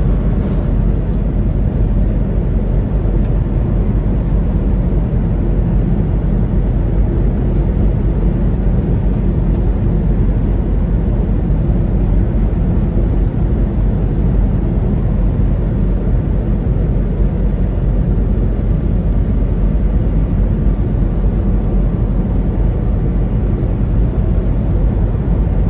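Steady low rumble of a semi truck running down the highway, heard from inside the cab: engine drone and road noise at an even level.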